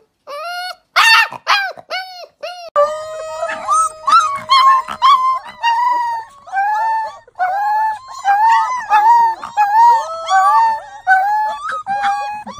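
Husky puppies howling: short rising-and-falling howls and yips at first, then from about three seconds in a dense run of wavering howls, with a long steady howl held under them for a few seconds.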